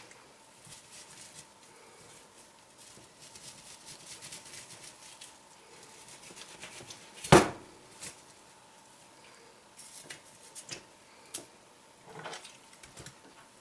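A French billhook cutting raw chicken on a cutting board: faint slicing and scraping, then one sharp chop about seven seconds in, and a few light knocks near the end.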